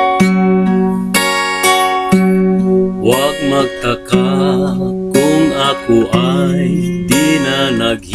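Steel-string acoustic guitar with a capo, strummed and picked through the chords of a slow ballad intro. From about three seconds in, a wordless wavering melody with vibrato sounds over the chords.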